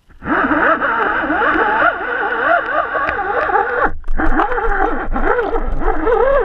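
Fishing line and rig vibrating through the GoPro's waterproof housing as the line is pulled through the water: a loud warbling whine whose pitch wanders up and down. It starts suddenly and breaks off briefly about four seconds in.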